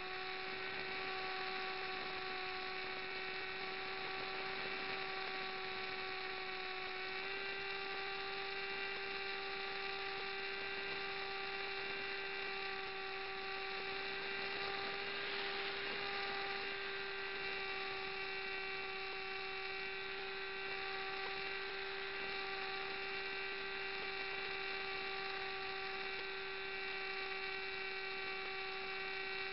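Steady whine of a model aircraft's electric motor and propeller, heard from an onboard camera on the wing. The pitch steps up slightly about a quarter of the way in, and there is a brief rush of air noise about halfway through.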